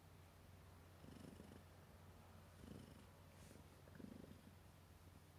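Somali cat purring contentedly while its head is stroked: a faint, steady low purr that swells about every second and a half with each breath.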